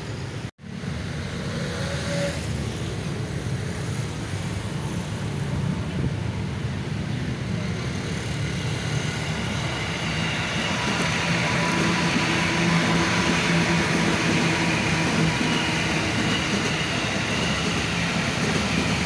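An electric commuter train (KRL multiple unit) runs past with a steady rumble of wheels on rail. About ten seconds in, a steady motor whine joins it and the sound grows louder. There is a brief dropout in the sound just after the start.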